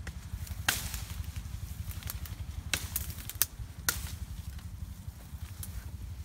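Sharp snaps and cracks of twigs and branches being broken off a shrub, about five over a few seconds, over a steady low rumble.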